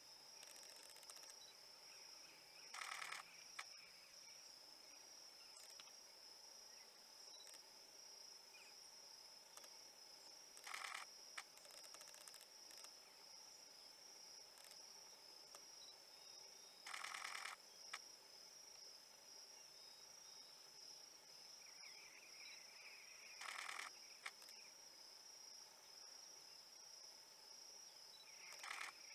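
Faint outdoor insect chorus: a steady, high-pitched cricket-like drone. A short pulsed buzz repeats about every six seconds, five times.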